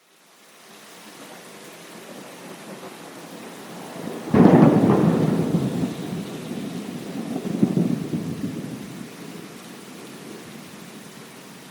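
Rain fading in as a steady hiss, then a sudden thunderclap about four seconds in that rumbles on, swells again a few seconds later and dies slowly away under the continuing rain.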